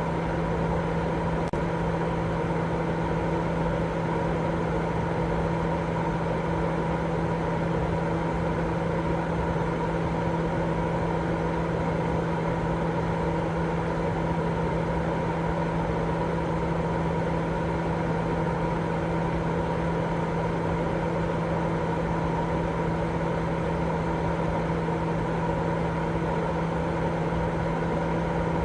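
Constant sleep-aid noise track: an even rushing noise, heavier in the low and middle range, with a steady low hum and a few fixed tones in it, like a running motor or appliance. It does not vary.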